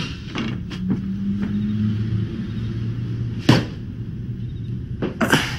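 A low steady drone with two held low tones, broken by a few short sharp swishes or clicks, the loudest about three and a half seconds in.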